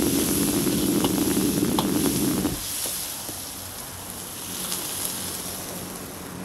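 Chopped green chillies and peppercorns sizzling in hot oil in a wok over a roaring gas wok burner. The low roar stops abruptly about two and a half seconds in, leaving the sizzle and a few clinks of metal.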